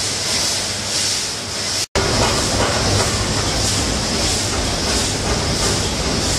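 Snack packaging line machinery running: a steady mechanical clatter and rumble with a hiss that swells and fades in a regular rhythm. The sound drops out for an instant about two seconds in, then comes back with more low rumble.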